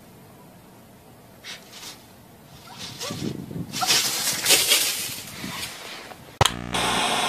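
Crunching and scuffling on gravel as a small dog runs across it, starting about three seconds in. Near the end a sharp click, then a steady electronic buzz cuts in.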